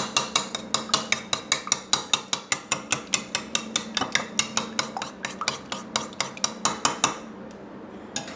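An egg being beaten by hand in a bowl: a utensil clicks rapidly and evenly against the bowl, about six strokes a second, and stops about seven seconds in.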